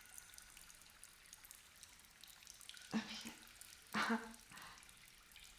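Faint water dripping and trickling in a cave, with two short vocal sounds from a woman about three and four seconds in.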